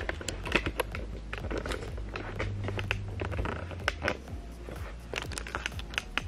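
Rustling, crackling and scattered clicks of cardboard and polystyrene foam packaging being handled.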